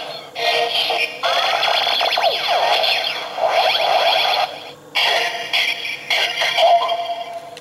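Kick Hopper Zecter transformation-belt toy playing its electronic transformation sequence through its small built-in speaker: synthesized sound effects and music in several blocks with short breaks between them, set off by the switch at the end of the Zecter's travel.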